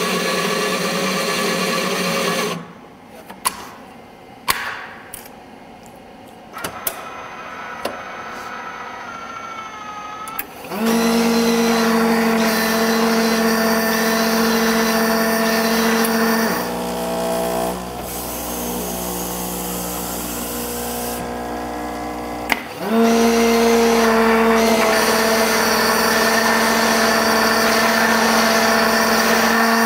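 Bean-to-cup coffee vending machine brewing a mochaccino: a motor runs for the first two and a half seconds, then a quieter stretch of clicks, and from about eleven seconds the mixer motor hums steadily as milk and then chocolate and coffee pour into the cup, dropping lower for a few seconds midway before coming back.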